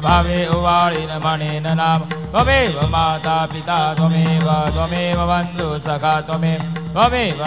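A man chanting a Hindu devotional song into a microphone, in long sliding phrases over a steady low drone.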